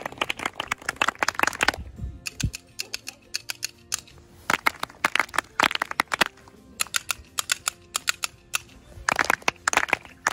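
A group of people clapping along in rhythm, in several bursts of a second or two, with two low thumps about two seconds in.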